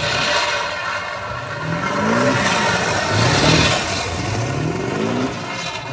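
Diesel engine of a lifted Ford pickup revving hard again and again during a burnout, its pitch climbing about four times. A steady hiss of the rear tires spinning and smoking on the pavement runs underneath.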